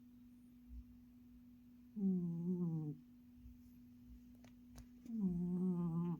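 Sleeping cat snoring: two drawn-out, pitched snores, each about a second long and about three seconds apart, with the rhythm of its breathing. A steady low hum lies under them.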